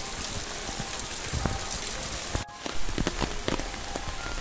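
Heavy rain pouring onto a flooded paved courtyard: a steady hiss full of small splashes and drops hitting standing water. The sound cuts out for a moment about halfway through.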